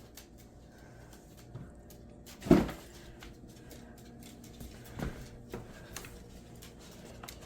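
Quiet handling noise: faint clicks and rustling, with one dull knock about two and a half seconds in and a few lighter knocks around five to six seconds in.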